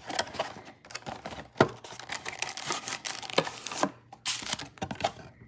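Trading-card pack wrappers crinkling and cards being handled: irregular rustling with scattered sharp clicks and taps, and a denser crinkle about four seconds in.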